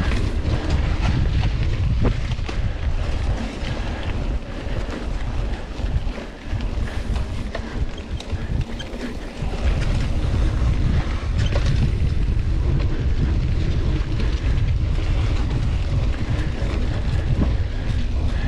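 Wind buffeting the microphone of a riding mountain biker, over a low rumble and small clicks and rattles from the bike on the trail. The rumble eases for a few seconds in the middle, then picks up again.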